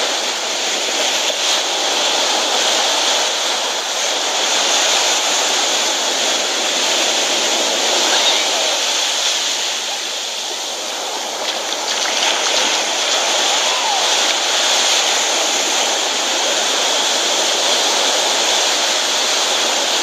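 Surf washing onto a sandy beach: a steady rushing of breaking waves that eases slightly about halfway through.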